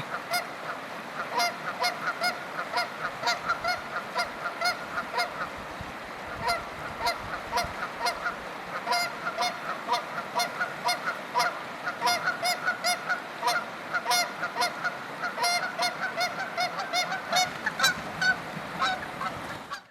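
A couple of geese honking back and forth in a steady run of short calls, often several a second, which cut off abruptly near the end.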